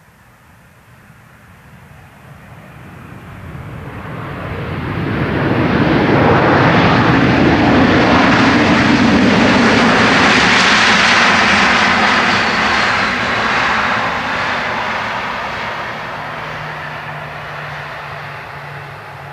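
Boeing 737-800's CFM56-7B jet engines on the landing roll just after touchdown, growing loud as the airliner passes close and then fading as it moves away, with a faint whine that falls in pitch.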